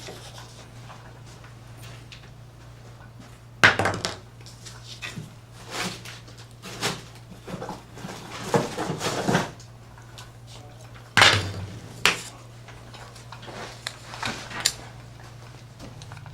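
Small hard parts and tools being handled on a work surface: scattered clattering and rustling with sharp knocks, the loudest about four seconds in and again near eleven seconds, over a steady low hum.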